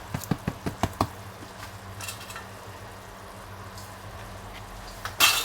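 Cooking pot and utensils being handled: a quick run of about seven knocks and clinks in the first second, a small clatter about two seconds in, and a loud clattering burst near the end, over a steady low hum.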